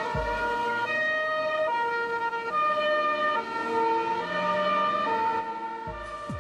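Italian police car two-tone siren, alternating between a low and a high note about every 0.8 seconds. Near the end, music with a beat comes in.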